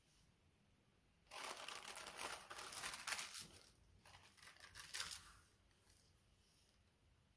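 Tissue paper being unwrapped from the contents of a gift box, rustling from about a second in for some four seconds, with a couple of sharper crackles, then stopping.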